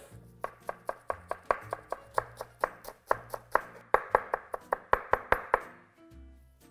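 Chef's knife finely chopping fresh parsley on a wooden cutting board: a quick, even run of knife strikes, about five a second, that stops about a second before the end.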